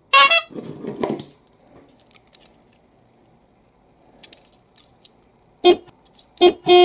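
Three horn-like toots near the end, two short and a longer third. A brief tone falling in pitch right at the start, followed by soft handling noise.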